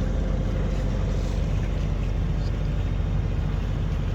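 A sailing yacht's inboard engine running steadily while the boat motors along, with a fast even low pulse.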